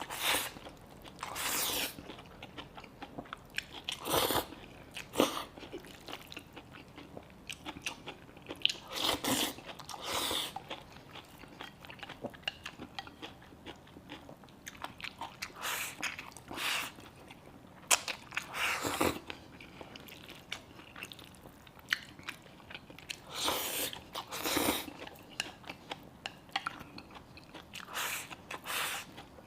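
A person eating close to the microphone: bites and chewing of rice with spicy line-pepper eggplant and preserved egg, coming in irregular short bursts.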